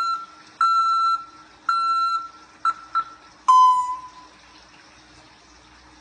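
African grey parrot whistling beep-like notes: a run of short steady notes about a second apart, a quick pair, then a lower, longer note that sags slightly in pitch.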